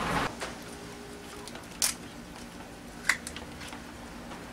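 Hands handling a live land crab over a plastic bin as its back shell is pried off: two short, sharp clicks, about two and three seconds in, over a quiet background.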